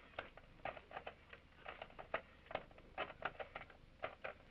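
Rotary telephone being dialled: a run of faint, quick clicks, several a second and unevenly spaced, as the dial is turned and spins back for each digit.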